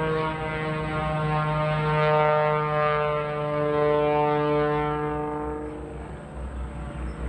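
Pitts biplane's engine and propeller giving a steady droning note with shifting overtones as it climbs, fading and dipping in level about six seconds in as the plane rolls over.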